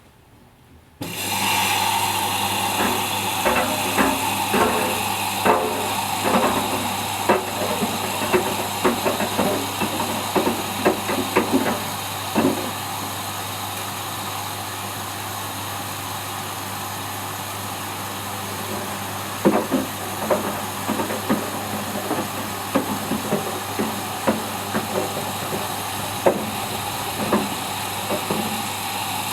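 Whirlpool Indiana 1400 washing machine on a fast wash, starting abruptly about a second in: a steady hum and rush from the turning drum, with many light irregular knocks and clatters as the load tumbles, coming in two spells.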